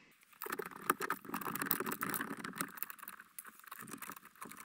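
A plastic split-core current sensor being handled and clipped around a circuit wire in a breaker panel: rustling and scraping of wires and plastic, with many small clicks.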